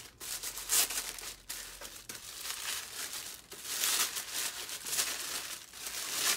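Wrapping around a book being crinkled and torn open by hand, in several irregular crackling bursts.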